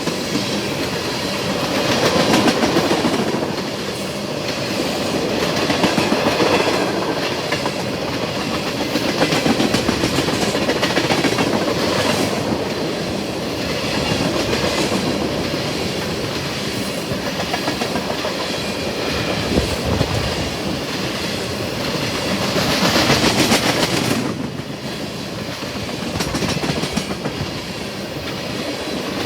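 Freight train of tank cars rolling past with a steady clickety-clack of wheels over the rails. The sound swells and eases every few seconds as the cars go by.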